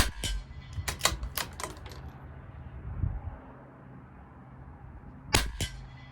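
Two shots from a CZ 457 LRP bolt-action .22 LR rifle firing Eley Subsonic Hollow ammunition, one at the start and one about five and a half seconds in. Each shot is followed by quick metallic clicks of the bolt being worked to eject the case and chamber the next round.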